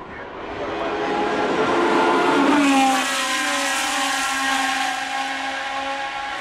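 Racing car engine at high revs, growing louder as it approaches. Its pitch drops as it passes, about three seconds in, then holds a steady note.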